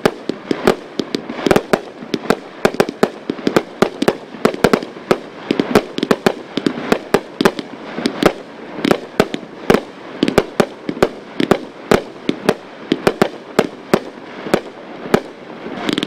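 A 1,000-gram 'Mayhem' finale fireworks cake (56 shots) firing a rapid barrage: shells launching and bursting in quick succession, about three or four sharp bangs a second.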